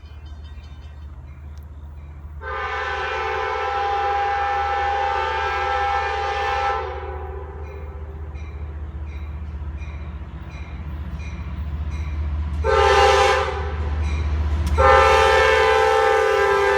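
CSX freight train's locomotive horn sounding a long blast, a short blast and another long blast, the grade-crossing pattern, over the low, steadily growing rumble of the approaching diesel locomotives.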